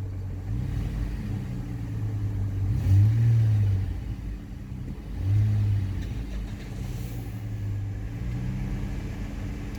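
Car engine being revved from idle: two short blips of throttle, about three and five and a half seconds in, each rising and falling back to a steady idle.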